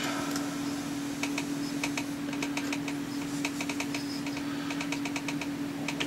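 A drill bit being fitted into the machine's drill chuck: a run of irregular light clicks and ticks as the chuck is handled and tightened, over a steady hum.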